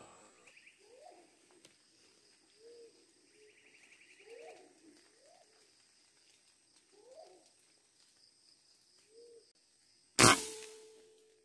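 A pigeon cooing softly, a short low call repeated about six times. About ten seconds in comes a single rifle shot, the loudest sound, which fades over about a second.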